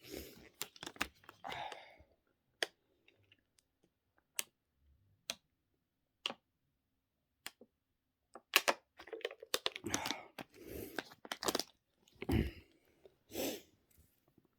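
Close, quiet sharp clicks about a second apart, then several seconds of crackling, crunching noises near the end.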